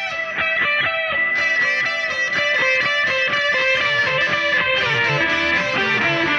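Guitar music: a run of quick plucked notes.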